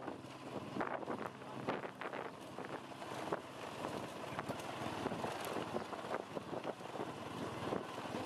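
Wind buffeting the microphone of a moving vehicle, with the vehicle's running noise underneath and many short knocks and rattles.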